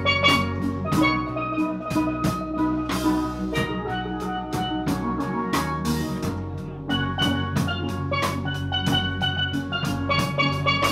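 Live steel band playing: steel pans struck with mallets carry the melody and chords over a drum kit and an electric bass guitar, with a steady beat and a cymbal crash about three seconds in.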